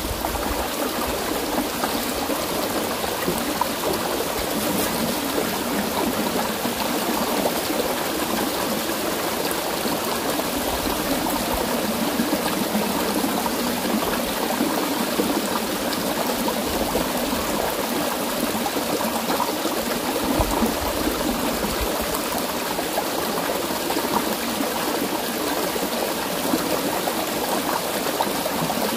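Shallow rocky stream flowing steadily over stones and a small cascade, an even, unbroken rush of water.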